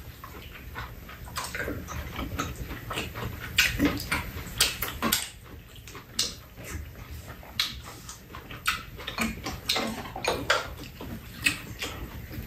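Close-up eating sounds: chewing and mouth smacking on stir-fried chicken, with irregular clicks and taps of spoons and chopsticks against the pan and bowls.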